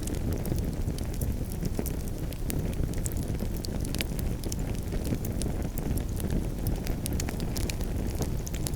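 Campfire burning: a steady low rumble with frequent sharp, irregular crackles and pops from the burning wood.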